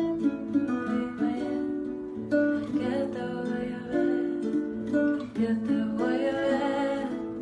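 Acoustic guitar music: plucked notes and chords ringing one after another in a steady flow.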